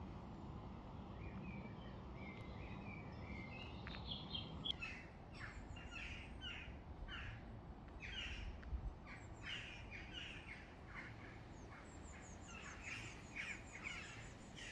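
Birds calling: a few whistled notes at first, then from about four seconds in a long run of short, sharp chirps, about two a second, over a faint low rumble.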